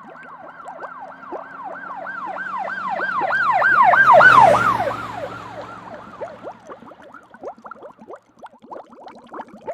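Emergency vehicle siren in a fast yelping pattern, quick repeated up-and-down wails, growing louder to a peak about four seconds in and then fading away as the vehicle passes.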